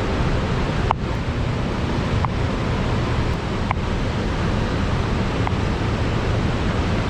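Steady rush of a waterfall, a continuous even roar of falling water, with a few faint brief clicks.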